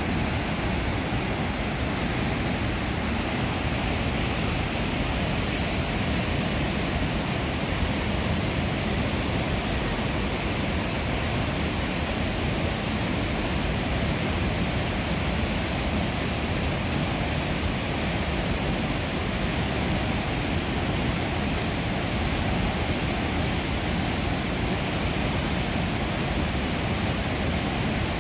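Sengataki waterfall's water pouring down in a steady, unbroken rush.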